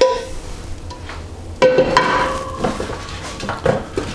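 A utensil scraping vegetables out of a metal frying pan into a metal oven tray, with knocks on the pan. About one and a half seconds in comes a sharp metal clank that leaves the pan ringing, then lighter clicks as the vegetables are pushed around the tray.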